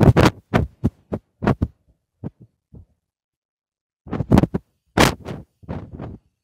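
Phone microphone handling noise: irregular muffled bumps and rubs as the phone is moved about, a quick run of them at first, then a pause, then another cluster.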